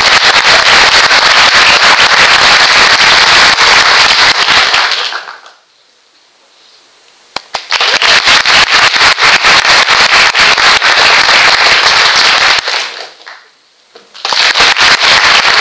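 Audience applauding loudly in three bursts, each cut off sharply into a brief hush, the crowd answering a performer's arm gestures.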